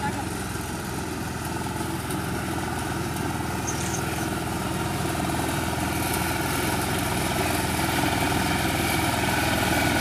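Engine of a self-propelled reaper machine running steadily, growing gradually louder.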